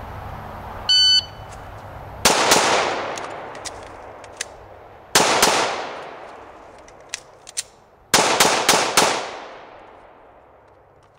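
A shot-timer beep, then a Glock 21SF .45 ACP pistol firing about seven shots: two in quick succession, a single shot, and then a fast string of about four, each shot trailing off in echo.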